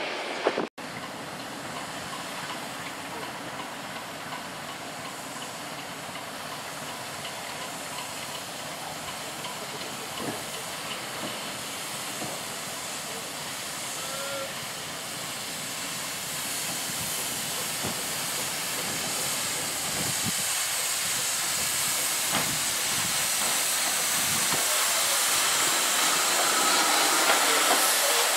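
Steam hissing from a Great Western 1500 class pannier tank locomotive, No. 1501, as it approaches slowly and draws alongside. The hiss grows steadily louder as the engine comes nearer.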